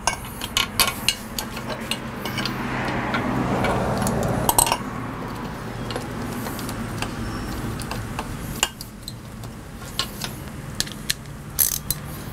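Irregular metallic clicks and clinks of a socket wrench on the bolts of an outboard motor's lower unit as they are tightened.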